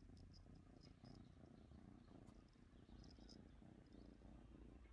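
Ginger kitten purring faintly and steadily.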